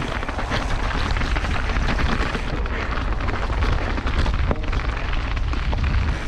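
Wind buffeting the microphone over a steady low rumble, with dense rattling and clatter from a mountain bike pounding down a rocky, square-edged descent.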